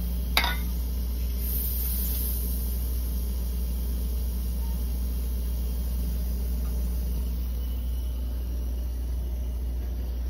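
Steady low hum of a refrigerator's compressor running while it is being recharged with refrigerant through a piercing valve. A short squeak about half a second in.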